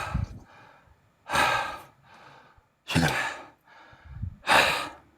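A man panting heavily, out of breath after a set of push-ups: loud, hissing exhalations come about every one and a half seconds. One of them, about three seconds in, carries a spoken word.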